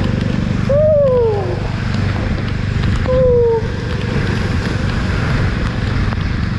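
Jawa motorcycle's single-cylinder engine running at road speed in heavy rain, under wind buffeting and the hiss of water on the wet road. Two short gliding tones cut through, one rising then falling about a second in and another falling about three seconds in.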